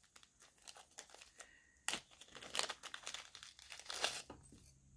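Paper packaging crinkling and rustling as an item is unwrapped by hand, in irregular crackles with louder bursts about two and four seconds in.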